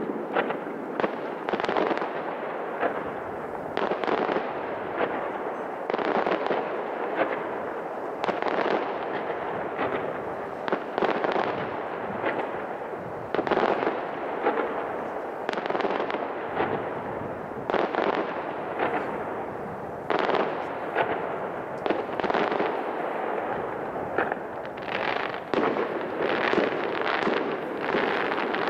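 Aerial fireworks going off in quick succession: sharp bangs of launches and shell bursts, several in some seconds, overlapping with a continuous echoing rumble and no pause.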